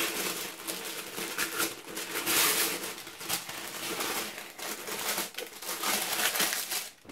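Tissue paper crinkling and rustling as it is unfolded and pushed aside by hand, in irregular crackly bursts that are loudest about two and a half seconds in.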